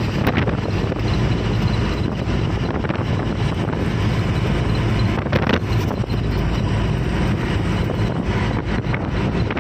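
Steady road and engine noise of a truck cruising on a highway, with wind buffeting the microphone.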